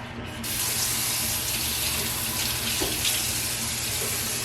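Bathroom sink tap turned on about half a second in, water running steadily into the basin.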